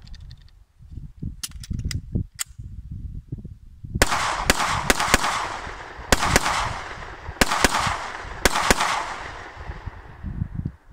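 Canik semi-automatic pistol firing about ten shots in quick pairs, starting about four seconds in; each shot is a sharp crack with a trailing echo. Before the shooting there are a few light clicks, and a low rumble of wind on the microphone runs underneath.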